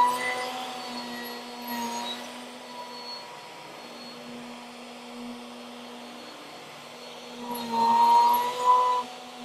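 Electric plunge router with a wide flattening bit running at a steady pitch while it is pushed across a board on a router sled, taking a deeper flattening pass. It is loud at the start, quieter through the middle and loud again near the end.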